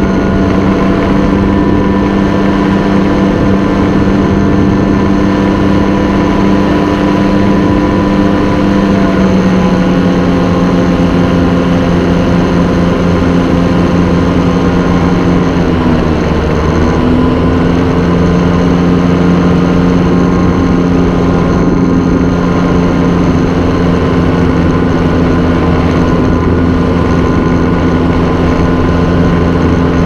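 Tandem paramotor trike's engine and propeller running steadily in flight, with small shifts in engine pitch about ten and sixteen seconds in.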